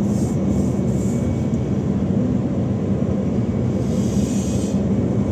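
Steady low rumble of a car driving at highway speed, heard from inside: engine hum with tyre and wind noise. The hiss swells briefly about four seconds in.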